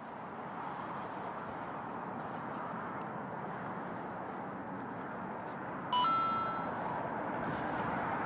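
Electronic two-note chime sound effect about six seconds in: a short low beep then a higher ringing tone that fades, marking a checklist item being ticked off. Under it, a steady rushing background hiss.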